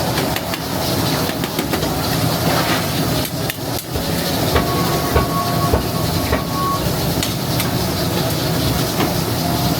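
Busy restaurant kitchen: a steady roar with frequent metal clanks and clatter, as of ladles on karahi pans over gas burners. A steady high tone sounds for about two seconds midway.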